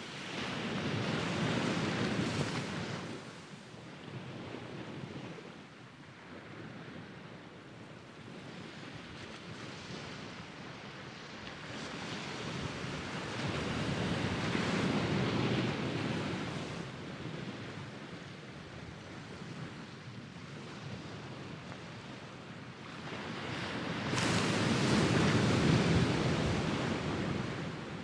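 Small sea waves breaking and washing up a sandy beach. The surf swells three times, near the start, around the middle and loudest near the end, with a softer hiss of wash between.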